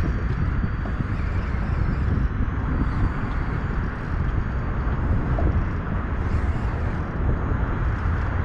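Steady outdoor noise: a low rumble with hiss above it, unchanging throughout, with no distinct event.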